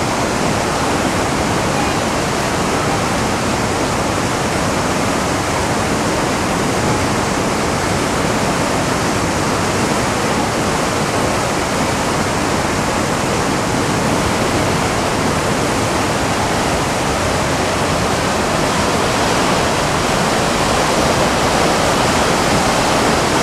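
White-water rapids of a mountain river, a loud, steady rush of water pouring over and around boulders.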